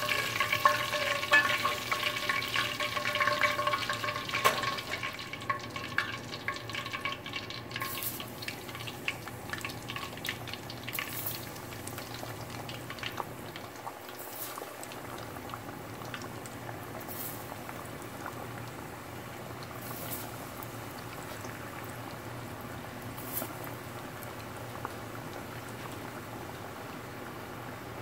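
Chicken drumettes deep-frying in hot oil for their first fry: a steady sizzle and bubbling with dense crackling. It is louder and busier for the first several seconds, then settles into a steadier sizzle.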